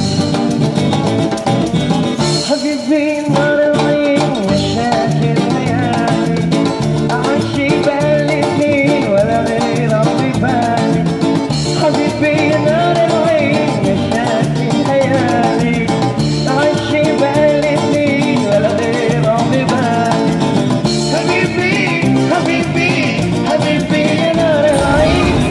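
Background music in a lively Latin, salsa-like style, with a steady beat and a melody line over it.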